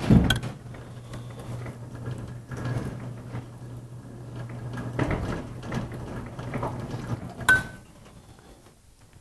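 Writing on a classroom board: scattered light taps and scrapes, with a sharp click about seven and a half seconds in, over a steady low hum that stops near the end.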